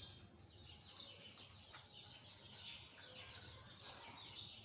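Faint bird chirping: short high chirps repeating on and off, with a single click partway through.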